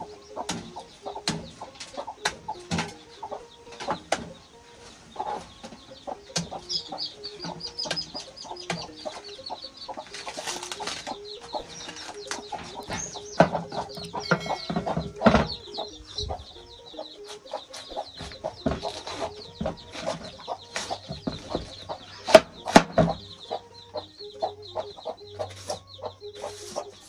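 A knife slicing through a raw cabbage head in short, sharp cuts, over a hen clucking repeatedly and her newly hatched chicks cheeping in a high, wavering chorus.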